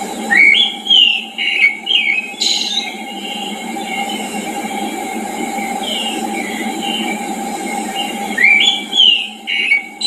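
Songbird singing in a mountain forest: a loud phrase of quick whistled notes that glide up and down, about half a second in and again near the end, with quieter notes between. Under it runs a steady low rushing background.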